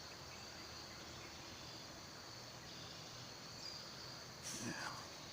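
Faint, steady chirring of insects with a thin high whine held throughout. A brief short sound breaks in about four and a half seconds in.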